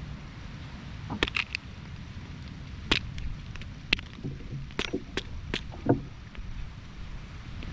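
Machete chopping at a green coconut: a quick run of sharp strikes a little over a second in, then single strikes every half second to a second, over a steady low rumble.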